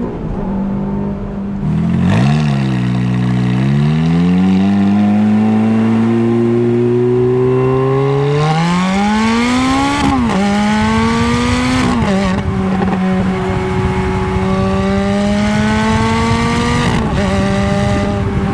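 Ferrari F430's V8 engine accelerating hard, the note climbing steadily with the revs, then dropping sharply twice, about ten and twelve seconds in, as the F1 paddle-shift gearbox changes up, before holding a steady cruise.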